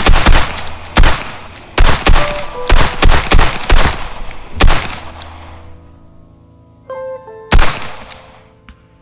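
A rapid volley of pistol gunshots, about ten in the first five seconds, each with a ringing tail, then a single further shot about seven and a half seconds in. A brief metallic ring comes just before that last shot, over steady background music.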